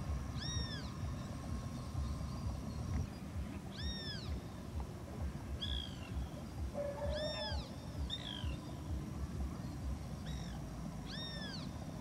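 An animal's short mewing calls, each rising then falling in pitch, about seven of them at irregular gaps, over a steady low rumble.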